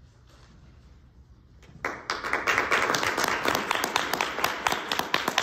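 Quiet room tone, then an audience breaks into applause about two seconds in, with many hands clapping.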